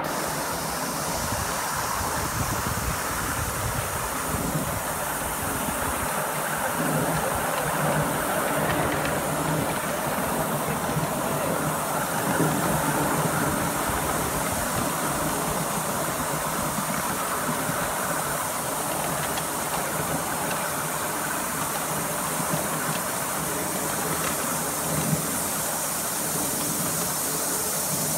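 7¼-inch gauge miniature live-steam Britannia locomotive running with its passenger cars: a steady hiss of steam over the rumble of the train on the track.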